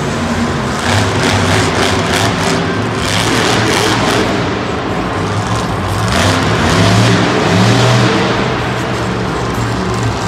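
Monster truck's supercharged V8 engine running and revving as the truck drives across the dirt floor, its pitch rising and falling, loudest about two-thirds of the way through.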